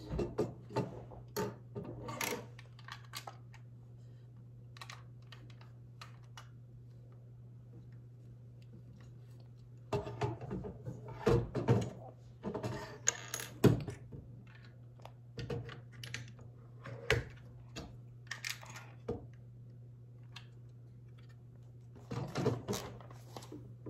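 Plastic Lego bricks clicking and rattling as pieces are handled and pressed together, in scattered bursts of sharp clicks with quiet stretches between.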